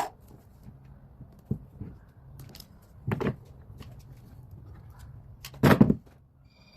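Handling noise from wooden birdhouse pieces being fitted and taped together: a few separate knocks and scrapes, the loudest near the end.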